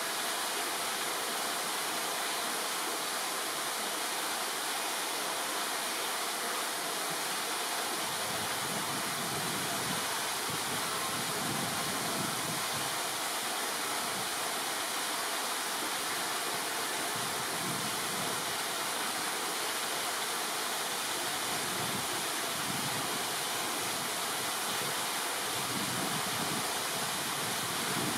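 Steady rush of running water, unbroken, with a slowly shifting low rumble under it.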